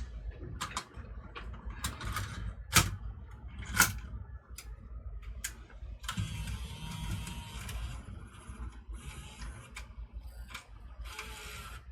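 Sharp clicks as a cassette is handled into a Sony CCD-TRV16 8mm camcorder and its door is shut. Then the camcorder's tape-loading mechanism, a small motor and gears, whirs in three runs as it threads the tape. The mechanism is loading properly now that its connectors have been reseated.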